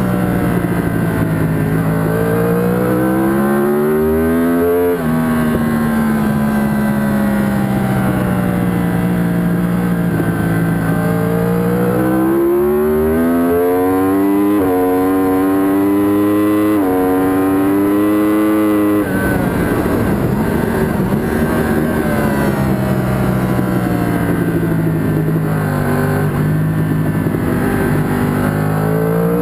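Yamaha R1 inline-four engine heard onboard at racing speed. It revs up hard through the gears with quick upshifts that each cut the pitch briefly, then drops off sharply under braking about two-thirds of the way in, runs lower through a corner, and climbs again near the end.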